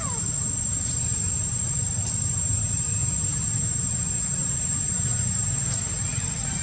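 A steady high-pitched insect drone, one unbroken tone, over a steady low rumble.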